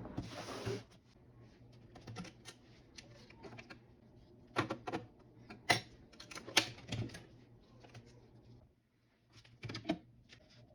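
Clicks, taps and clacks of hard plastic and metal computer parts being handled and snapped together, irregular, with louder clacks around the middle and again near the end. A short hiss comes at the very start.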